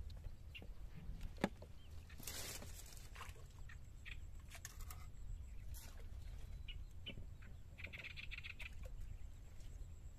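Scattered light clicks and rattles of a rusty wire fish trap being handled on a wooden boat deck, over a steady low rumble. A short noisy rustle comes about two seconds in and a brief rasping sound about eight seconds in.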